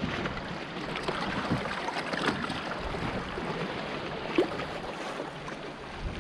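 Water splashing and lapping around a small fishing boat, with wind noise and one short knock about four seconds in.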